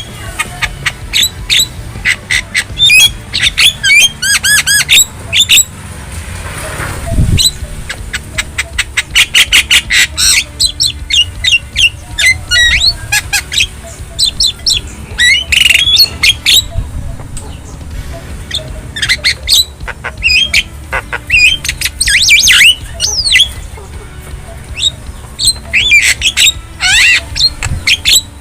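Javan myna (jalak kebo) singing and calling: a varied string of harsh squawks, whistled slurs and quick chattering trills, repeated throughout.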